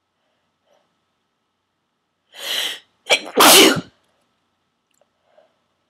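A person's forceful, wet sneeze, induced by tickling the nose with a plastic garment tag holder. A loud breathy wind-up comes about two and a half seconds in and the sneeze itself about a second later.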